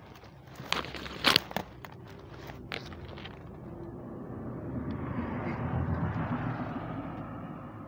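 Phone handling noise: several sharp crackles and knocks in the first few seconds, the loudest just over a second in, then a rumble that swells and fades over the last few seconds.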